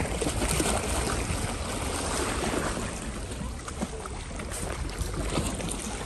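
Wind rumbling on the phone's microphone over small lake waves lapping against shoreline rocks.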